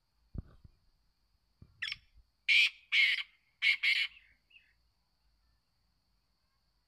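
Black francolin calling: a run of about five loud, harsh, scratchy notes about two seconds in, with a short faint note after. Two dull low thumps come first.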